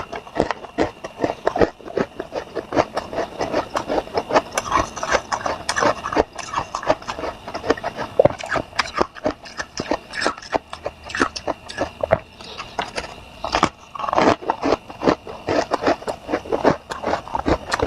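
A person biting and chewing crunchy freezer frost quickly: a dense, continuous run of sharp crunches and crackles.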